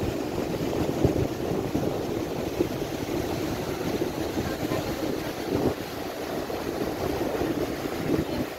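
Surf washing onto a sandy beach, a steady rushing noise, with wind buffeting the microphone.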